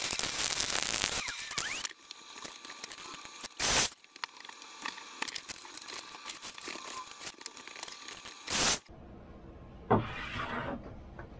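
Aerosol spray paint hissing steadily for about two seconds, then it cuts off. Quieter handling noise follows, broken by two brief loud bursts about five seconds apart.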